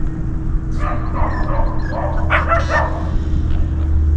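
A dog barking in short clusters of quick yelps, about a second in and again a little past halfway, over a steady low rumble.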